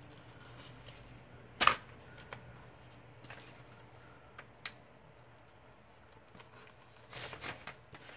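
Scissors and paper-kit packaging being handled: one sharp clack about one and a half seconds in, a few light clicks after it, then a short stretch of crinkling near the end as the packet is worked open.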